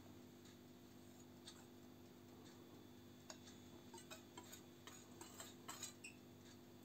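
Near silence: a faint steady hum, with faint, irregular light ticks from about three seconds in as sifted flour is poured into a glass mixing bowl with a wire whisk standing in it.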